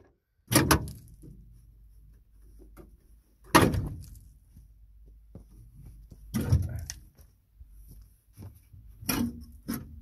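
Metal clunks and knocks from a chrome rear bumper being worked loose and pulled off a Dodge Ram pickup's frame. There are about five sharp knocks, spaced a few seconds apart with the last two close together, and light rattling between them.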